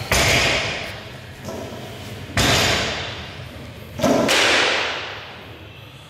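Three loud clanging impacts of a loaded barbell and its weight plates, about two seconds apart, each ringing out and echoing in a large hall.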